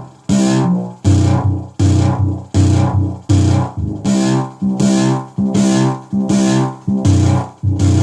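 Arturia MicroBrute analog synth playing a repeating bass-note pattern through the Echoblender delay pedal, set up as a dirty, high-frequency distortion. Short, sharply struck notes come about every three-quarters of a second, each dying away quickly with a hissy, distorted top.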